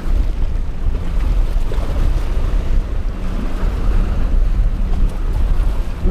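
Wind buffeting the microphone over rough surf and breaking waves, with a small boat's outboard engine running underneath.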